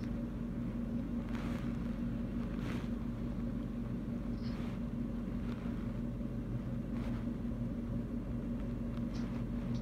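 A steady low hum with a rumble beneath it, heard over a phone call, with a few faint brief noises.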